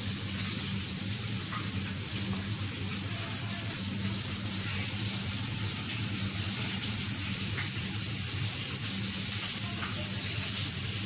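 Flour-coated chicken fillet deep-frying in hot oil in a kadai: a steady sizzle, with a steady low hum beneath it.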